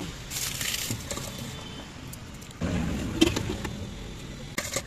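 Road traffic running in the background of a street stall. Over it come a brief crackle and a few light clicks as crisp pani puri shells are broken into a steel bowl for chaat.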